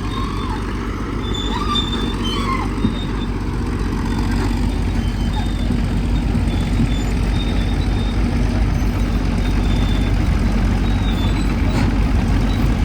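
Heavy machine's engine running steadily, a low rumble that grows gradually louder.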